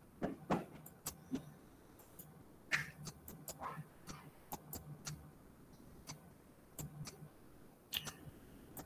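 Faint, irregular clicking from a computer mouse: a dozen or so sharp single clicks spread unevenly over several seconds.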